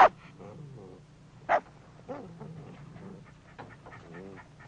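A dog whimpering and whining in short, wavering cries, with two sharper, louder yelps, one at the start and one about a second and a half in: the dog is distressed.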